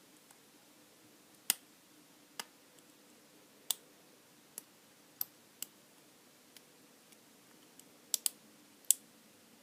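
Lots of little clicks from a lock pick working the pin stack of a Brady Abus 32.5mm padlock under light tension. About a dozen sharp, irregularly spaced clicks, the loudest a quick pair about eight seconds in and another just before the end.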